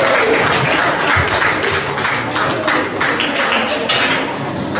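Audience applause thinning out into scattered separate claps, a few to the second, slowly fading.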